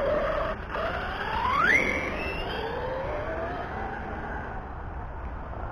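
Brushless electric motor of a Team Corally Kagama RC car (Hobbywing Max6, 1650 KV, on 6S) whining under throttle: the pitch climbs steeply about a second in, then keeps rising more slowly as the car speeds away.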